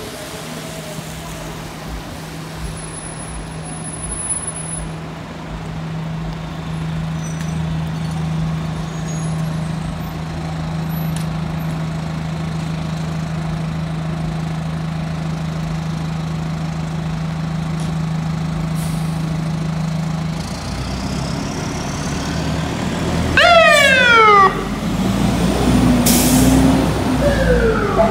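Diesel engine of a 2003 Seagrave fire pumper running with a steady low hum for about twenty seconds. Then comes a loud short burst of fast, repeated falling sweeps from its Federal Signal PA300 electronic siren, an air-brake hiss, and the siren starting to glide down again near the end.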